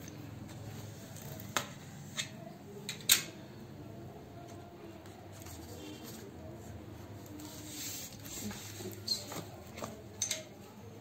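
Packing tape, plastic film and cardboard on a taped box being cut open and handled: scattered sharp clicks, crackles and scrapes, with the loudest snap about three seconds in.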